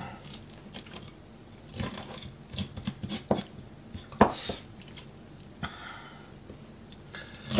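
Kitchen knife tapping and scraping on a plastic cutting board while small sandfish are cut and gutted by hand, with soft wet squishing; scattered clicks, the sharpest knock a little after four seconds in.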